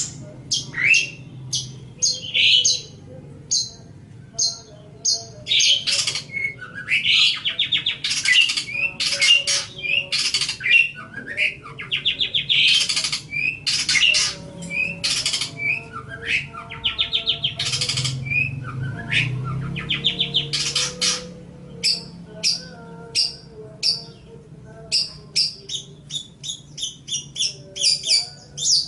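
Long-tailed shrike (cendet) singing. It gives a fast run of short, high chirps mixed with harsh, raspy, chattering squawks. The raspy chatter is densest through the middle, and quick clipped notes come near the end.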